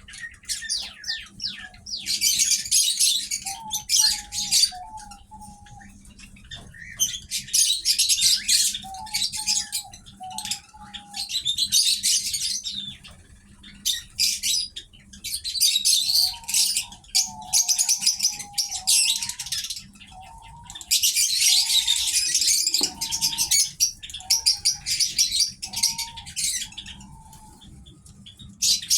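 Pet birds chirping and twittering in dense bursts that come and go every few seconds. At times short lower notes repeat about once or twice a second.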